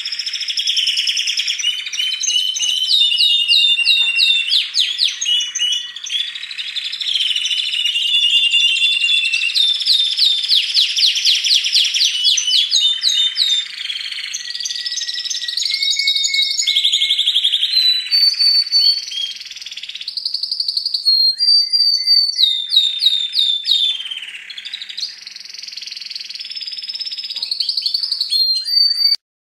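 Male bronze canaries singing: long runs of fast trills and rolling repeated notes, with some notes held steady. The song cuts off abruptly near the end.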